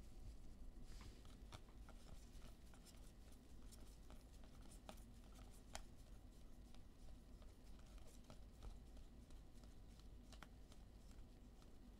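Near silence with faint handling of trading cards: scattered quiet clicks and rustles as cards are slid and flipped, over a low steady hum.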